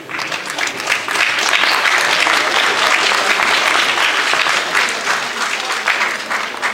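Audience applauding. It swells over the first second, holds steady, then thins to a few scattered claps near the end.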